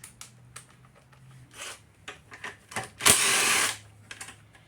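Impact driver running in one short burst of under a second, about three seconds in, backing out a 3/8 carburetor mounting bolt on a lawn mower engine. Light clicks of a socket and tools come before it.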